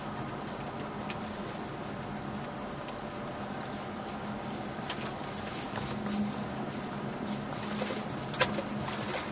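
2007 Subaru Forester's flat-four engine running steadily at low speed, heard from inside the cabin with a low hum and road noise, as it crawls over a snowy forest track. A few knocks from the car bouncing over the rough ground, the sharpest about eight seconds in.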